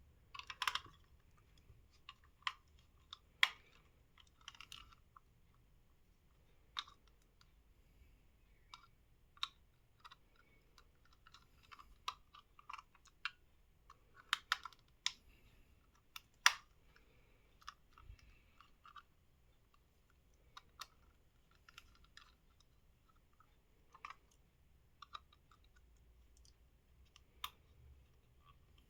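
Scattered small clicks and taps of hard plastic from a wireless mouse's casing being handled and worked apart with a small screwdriver, the part unscrewed but still stuck. The clicks come irregularly, a second or several apart.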